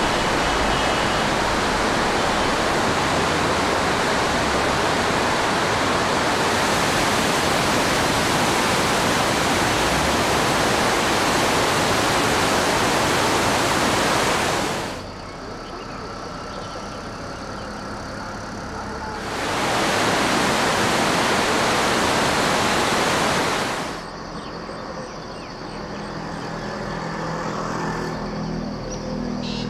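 A river in flood, its fast muddy water rushing past buildings: a loud, steady rush of water. It cuts away sharply twice, leaving a much quieter background that carries a faint low hum in the last few seconds.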